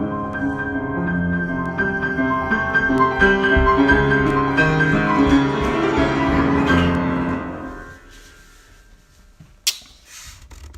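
Improvised piano playing, chords and melody notes ringing over low held bass notes, the last chord dying away about eight seconds in. A single sharp click follows near the end.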